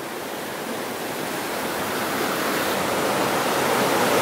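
A small creek rushing over rocks in a riffle, a steady rush of water that grows steadily louder.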